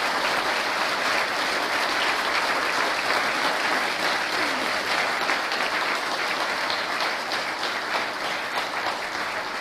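Audience applauding, steady, dense clapping that eases slightly near the end.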